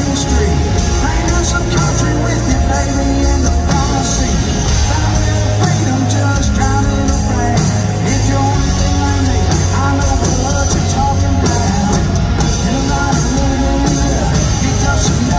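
Live country-rock band playing: electric guitar and a drum kit.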